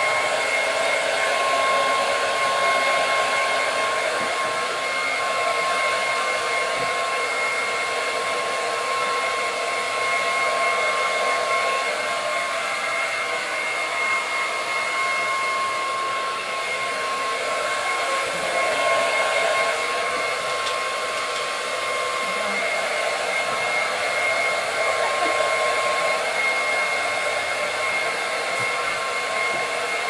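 Handheld hair dryer running continuously: a steady rush of blown air with a constant high motor whine.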